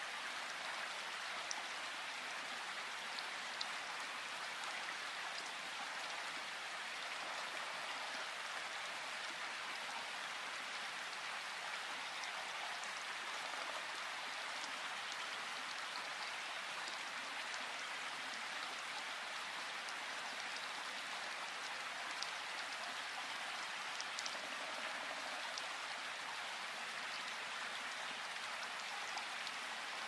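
Light rain falling, a steady even hiss with scattered sharp ticks of individual drops.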